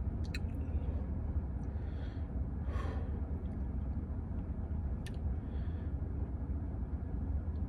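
A man breathing out audibly once, about three seconds in, over a steady low hum, with a couple of faint clicks.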